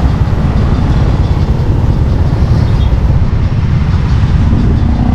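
A motorcycle running while being ridden, with a steady low rumble of wind buffeting the camera's microphone.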